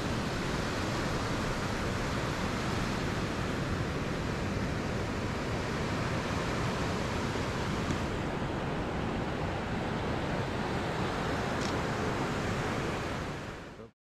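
Steady hiss of surf washing onto a sandy beach, mixed with wind rumbling on the microphone; it fades out near the end.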